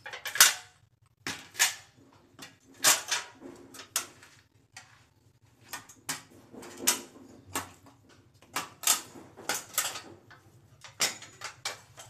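Hammer blows driving nails into wooden roof framing: sharp, sudden strikes, roughly a dozen at uneven intervals of about a second.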